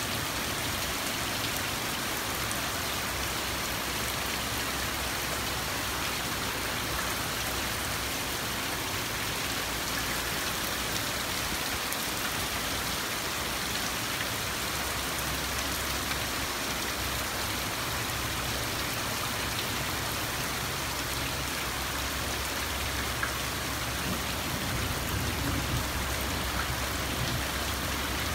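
Steady rain falling, an even hiss, with a low rumble building near the end.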